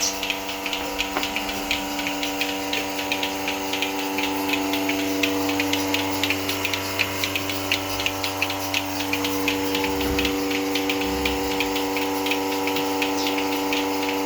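Milking machine running: a steady vacuum-pump hum with a rapid, regular hissing tick from the pulsators.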